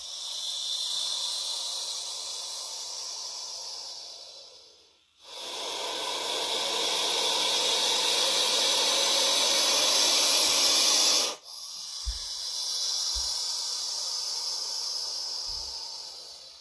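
A snake hissing: three long, breathy hisses of about five to six seconds each, separated by abrupt breaks, each swelling and then fading.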